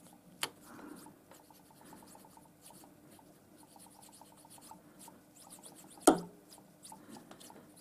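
A thin brass bar sliding through a freshly milled slot in a metal block, a faint metal-on-metal rubbing scrape, still a little tight in the slot. A click just under half a second in and a sharper knock about six seconds in.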